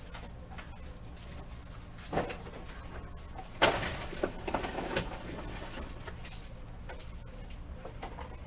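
Trading card packs being handled and opened: a light knock, then a sharp tear and about a second of crinkling foil wrapper.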